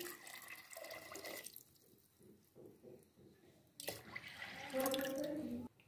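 Water poured from a glass into a pressure cooker onto soaked lentils and rice, in two pours with a short pause between, the second louder.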